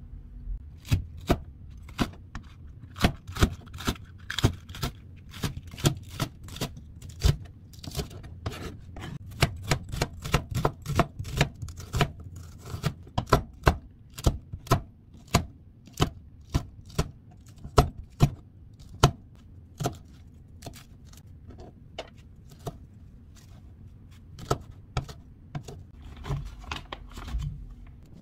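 Chef's knife chopping vegetables on a plastic cutting board: sharp, irregular knocks of the blade on the board, one to three a second, with a sparser stretch near the end.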